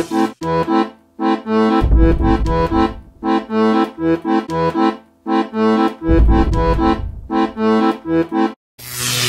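Background music: a bouncy tune of short, repeated chords over separate bass notes, with a deep low rumble under it twice. A short hissing whoosh comes near the end.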